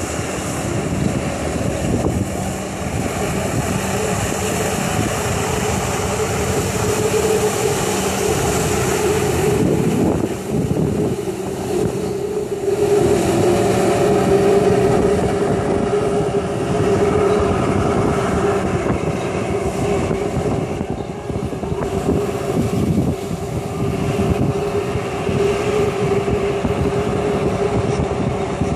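Personal watercraft engine running steadily at high revs to drive the water jet of a Jetovator, with the hiss and rush of spray from the jet nozzles. Its pitch wavers, then holds a little higher from about twelve seconds in.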